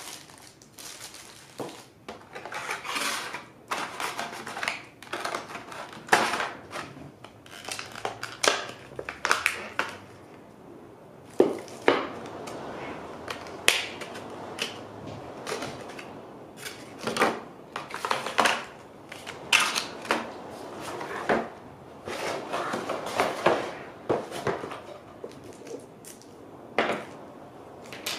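Unboxing handling noise: thin plastic packaging bags crinkling and rustling, with irregular clicks and knocks of a hard plastic insert tray and small parts being picked up and set down on cardboard and a wooden floor.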